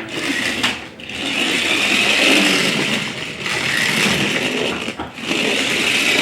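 Remote-control Monster Jam Max D toy truck's small electric motor and gears whirring under throttle. The whir dips briefly about a second in and again around three and five seconds, as the throttle eases off.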